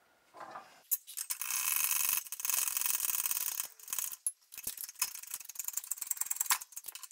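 A sharp click, then about three seconds of dense metallic rattling and scraping, then a run of lighter clicks and knocks: a steering stem and triple clamp being handled on the steel plates of a bottle-jack shop press, and the jack's handle worked to press the steering-head bearing onto the stem.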